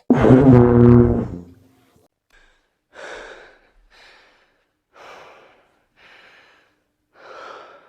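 A loud, low buzzing blast lasting a little over a second, followed by five soft breaths spaced about a second apart.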